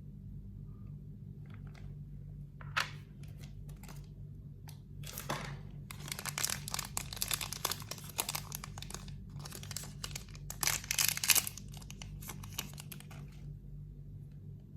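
Packaging being unwrapped by hand: irregular crinkling and tearing in clusters, busiest and loudest in the middle, over a steady low hum.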